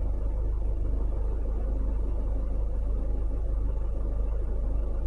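Steady low rumble with no breaks or distinct events.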